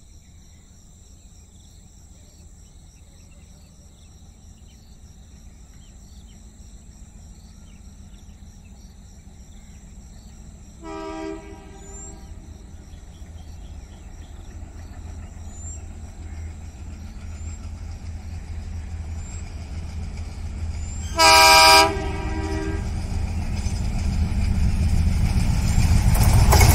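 ALCo WDM-3A diesel locomotive approaching, its engine rumble growing steadily louder. It sounds its horn twice: a fainter short blast about eleven seconds in and a much louder short blast about twenty-one seconds in.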